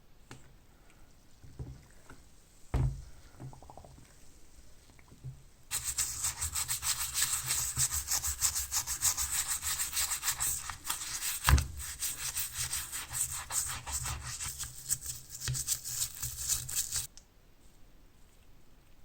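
Rapid back-and-forth scrubbing on the rusty metal padlock. It starts about six seconds in and stops abruptly a couple of seconds before the end, with one sharp knock midway through. A few handling knocks come before it.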